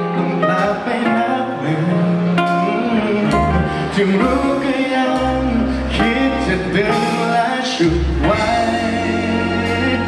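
A male singer sings a Thai pop song live with a band of electric and acoustic guitars, over a steady low bass line and a regular beat.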